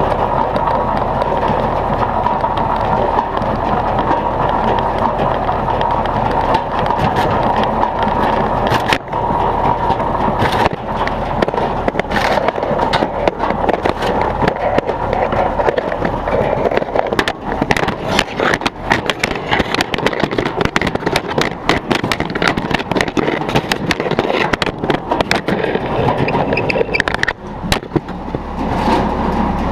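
Klapi-Tuiko guillotine firewood processor running, a steady mechanical rattle with birch wood knocking and clattering through it. The knocks grow dense and rapid from about halfway in.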